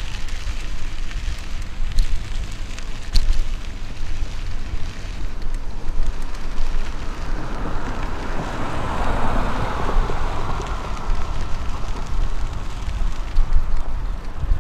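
Wind buffeting the microphone during a bike ride: a steady low rumble and rush, with a louder rushing swell that rises and fades between about seven and twelve seconds in.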